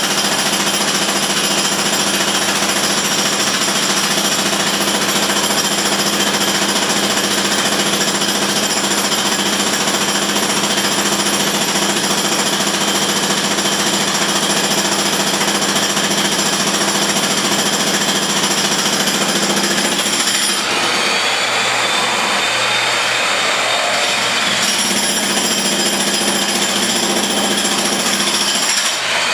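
Jackhammer hammering continuously and loudly. About twenty seconds in the sound changes, with a rising, then steady whine from another tool.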